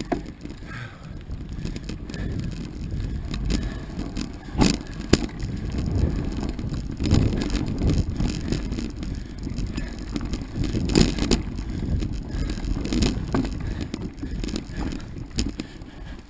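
Mountain bike riding down a dirt trail: a steady low rumble of the tyres on the ground, broken by scattered sharp knocks and rattles as the bike hits bumps.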